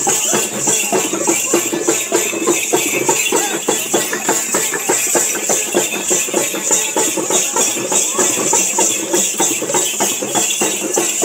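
Rapid, dense folk drumming on hand-held drums, with a steady high jingling or shimmering over the beats.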